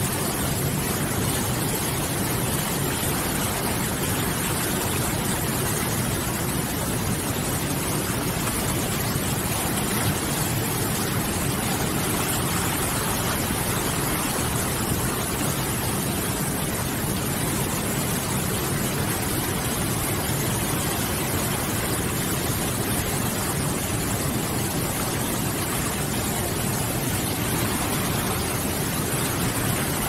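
Whitewater rapids of a strong-flowing mountain river rushing over boulders: a steady, dense rush of water.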